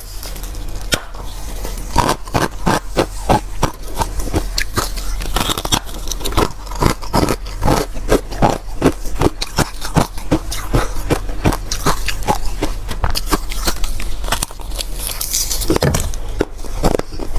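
Ice and freezer frost crunching and scraping close to the microphone, with rapid crisp crunches several times a second, over a steady low hum.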